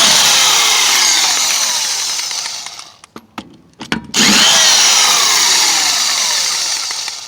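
Impact wrench run in two bursts of about three seconds each, loosening wheel lug nuts; its pitch falls steadily through each burst.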